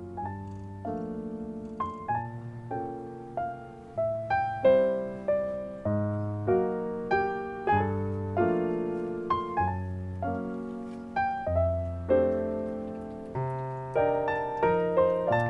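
Background piano music: a light melody of separate struck notes over low bass notes and chords.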